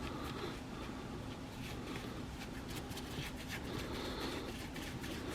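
Faint scattered clicks and light taps of small metal parts being handled, with a faint steady hum underneath.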